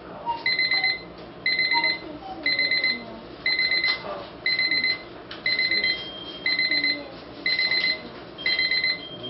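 RHYTHM LED digital alarm clock sounding its electronic alarm: a high-pitched burst of rapid beeps about once a second, repeating steadily.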